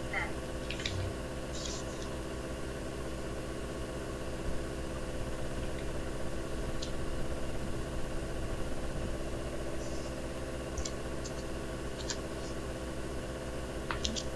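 Steady mechanical hum of background room noise, holding several fixed pitches, with a few brief, faint clicks scattered through it.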